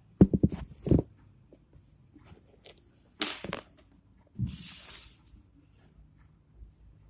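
Handling noises: a quick run of clicks and knocks, then two short bursts of rustling or tearing.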